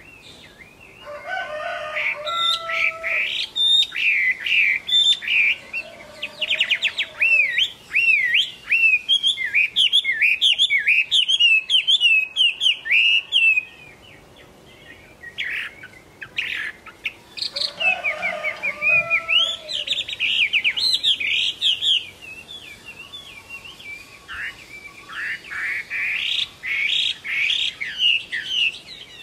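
Caged Chinese hwamei singing: long runs of rapid, varied whistled notes, breaking off about fourteen seconds in and starting again a few seconds later, with shorter phrases near the end.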